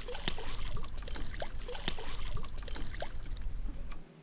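Water splashing and sloshing at a small boat, with irregular knocks and clicks over a low rumble; it cuts off abruptly near the end.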